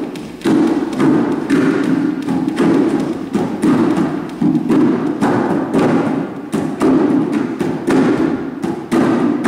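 Music with a steady thumping beat, about two beats a second.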